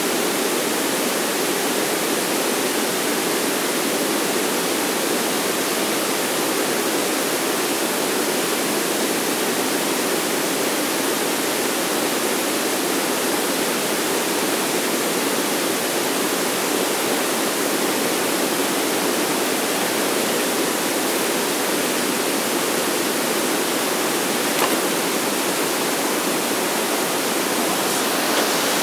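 Steady, even rushing noise that holds at one level throughout, with a single faint click about twenty-five seconds in.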